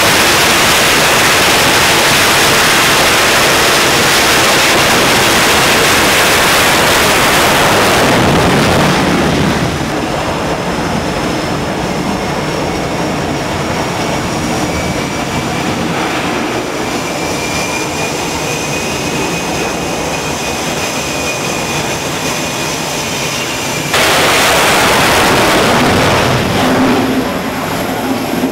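F/A-18 Super Hornet jet engines at full thrust for a catapult launch off an aircraft carrier deck: a loud, steady rush that drops after about nine seconds to the lower running noise and whine of jets on the deck. Near the end a second catapult launch brings the full-thrust noise back for about three seconds.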